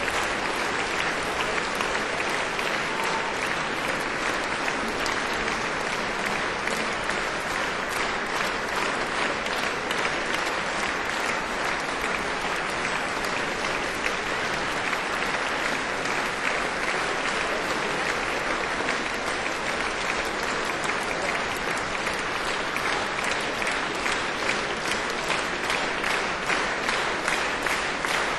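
Audience applauding steadily: a continuous, even wash of many people clapping.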